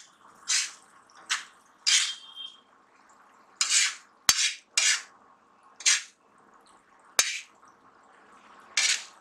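Steel spoon scraping and spreading a thick poppy-seed and onion mixture across an iron tawa: short separate scrapes, one every second or so, with two sharp clicks in the middle.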